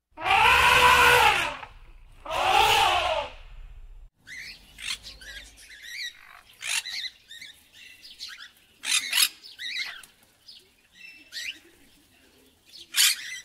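Two loud Asian elephant trumpet calls, the first about a second and a half long and the second shorter, each rising and then falling in pitch. From about four seconds in come a scarlet macaw's scattered squawks and chirps, the loudest near the middle and near the end.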